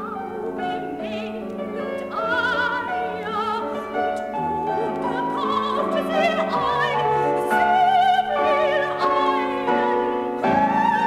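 A soprano singing a German art song with wide vibrato, accompanied by piano; the singing grows louder and ends on a long held high note.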